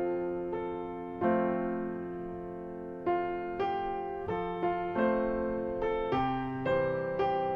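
Background piano music: slow notes and chords struck every half second to a second, each ringing and fading.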